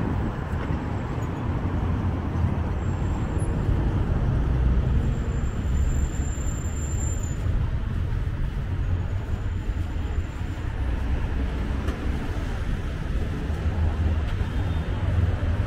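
City street traffic: passing cars and other motor vehicles making a continuous noise, heaviest in the low end.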